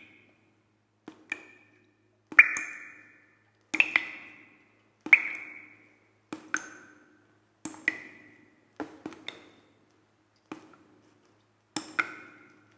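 Sparse percussive music: short struck notes, single or in quick pairs, about one every second and a half, each giving a bright ping that rings briefly and dies away into silence.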